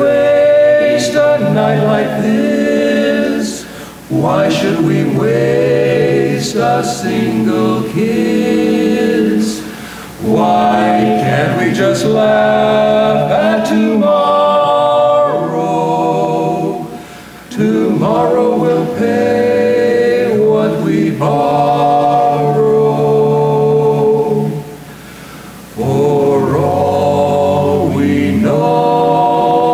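A barbershop quartet of four men singing a cappella in close four-part harmony. They sing long phrases of held, ringing chords, with brief breaks for breath about every six or seven seconds.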